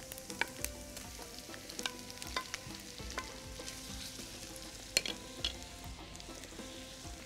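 Diced chicken breast sizzling as it fries in butter in a stainless steel frying pan, with a steady hiss, while a wooden spatula stirs it and knocks against the pan a few times, most sharply about five seconds in.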